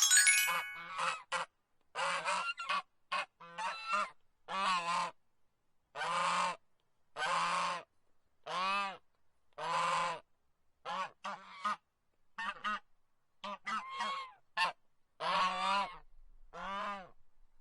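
Geese honking: a long series of separate honks, about one a second, some short and some drawn out. A brief bright ringing sound is heard right at the start.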